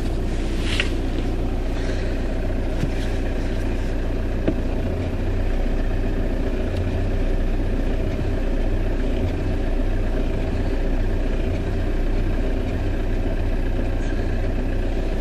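Audi A6 C6 idling steadily, with a few faint short creaks as the steering wheel is turned. The creak on turning the wheel is the fault being shown.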